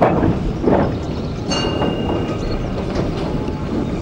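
Goods train with wagons and a brake van running slowly over the rails, a steady rumble with a few knocks at the start. From about a second and a half in, a thin high squealing tone sounds over it.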